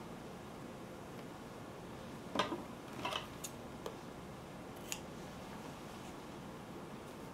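Scissors snipping through sheer ribbon several times in quick short cuts, the loudest about two and a half seconds in.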